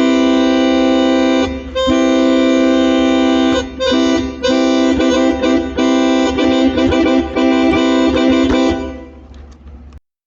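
Yamaha PSR-F51 electronic keyboard playing a sustained multi-note chord imitating a locomotive horn. It is sounded as a long blast, a second long blast, a short one, then a final long blast with quick stutters, the long-long-short-long pattern of a train's grade-crossing signal, and it stops about a second before the end.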